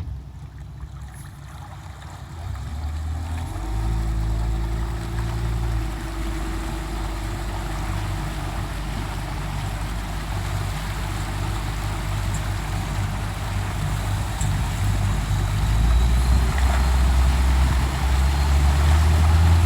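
Boat motor running under way, picking up about three and a half seconds in and then running steadily, with rushing water and wind noise that grows louder near the end.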